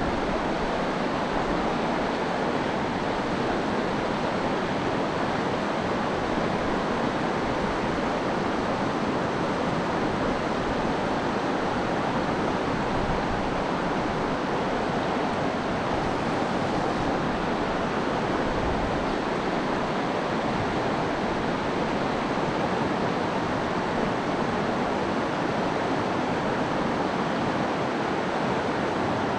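Steady rush of a fast-flowing river over rocks, white water running without a break.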